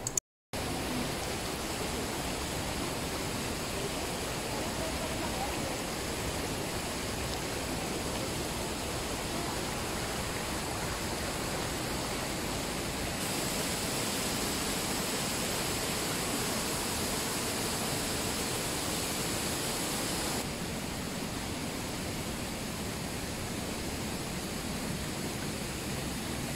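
Mountain stream and waterfalls rushing through a narrow limestone gorge: a steady, even rush of water. It breaks off for a moment at the very start, turns brighter about 13 seconds in and a little quieter about 20 seconds in.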